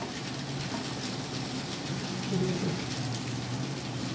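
Steady soft hiss of brinjal masala still sizzling in the hot steel kadai after the gas has been turned off.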